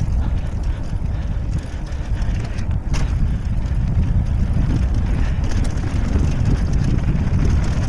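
Wind buffeting the microphone and a mountain bike's tyres rolling over a dirt trail at speed, with a sharp rattle of the bike about three seconds in.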